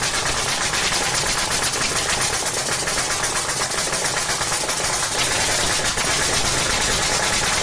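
A small motorised tool running steadily with a fast, even rattle.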